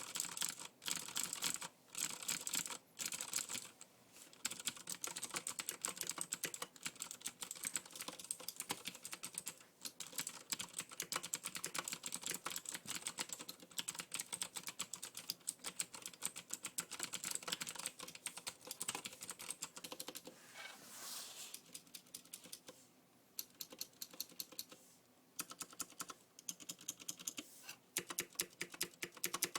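Typing on a Leopold FC700R tenkeyless mechanical keyboard with clicky Cherry MX Blue switches. Rapid runs of sharp key clicks, with a few brief pauses in the first seconds.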